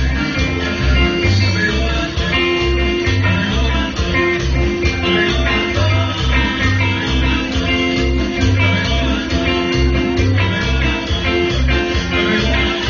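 Loud live band music through a PA system, with a steady, repeating bass beat.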